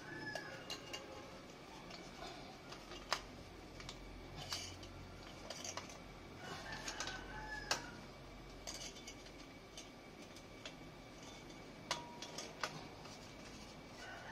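Sharp metal clinks and knocks, a few spread-out taps, as an Organ Sport V5 chicken-pipe muffler canister is slid and worked onto its steel elbow pipe. A rooster crows faintly in the background about seven seconds in.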